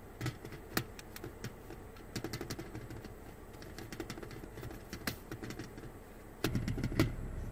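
Irregular plastic clicks and taps as a dash cam is handled and worked against its heat-deformed plastic windshield mount. A louder low rumble joins about six and a half seconds in.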